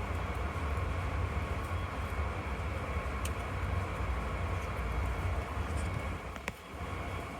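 Steady low rumble, with a faint sharp crack about six and a half seconds in.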